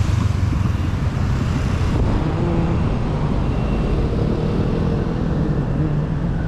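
City street traffic: motorcycles and cars passing close by as a steady rumble, loudest at the start.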